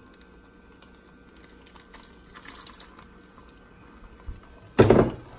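Chunky tomato sauce sliding out of a glass jar into a pot of cooked ground beef and beans, with a few faint clicks and a short soft splatter, then one loud knock near the end.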